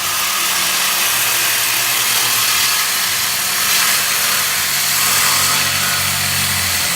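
Power cutting tool running steadily on the car's exhaust system as the secondary cats and muffler are cut off, a loud even hiss with a low motor hum under it.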